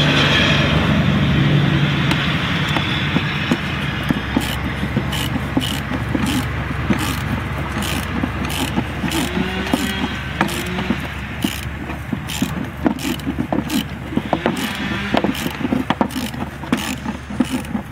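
Ratchet wrench clicking in irregular runs from about four seconds in as it turns the forcing screw of a pulley installer, pressing the pulley onto a power steering pump shaft. A steady low hum lies underneath, loudest in the first two seconds.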